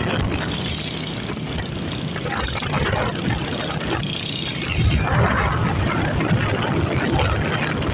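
Small motorcycle engines running at road speed along with steady road and wind rush from the moving bikes.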